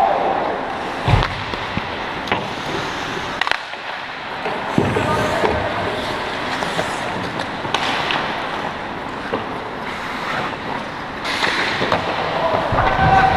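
Ice hockey play: skate blades scraping and carving the ice, with several sharp stick and puck knocks and a duller thud about a second in.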